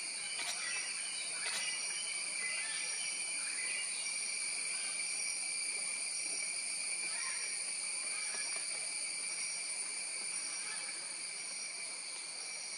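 Steady chorus of forest insects: several shrill, unbroken high tones, with a higher note pulsing a little more than once a second.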